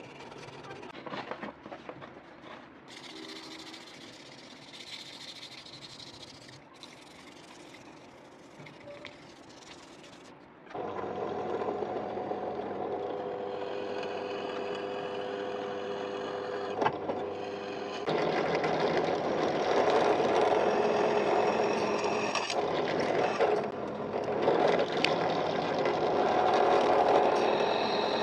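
Sandpaper rubbed by hand over a cleaver's wooden handle, then about eleven seconds in a drill press starts with a steady motor whine and drills holes through the handle, getting louder a few seconds later as the bit cuts.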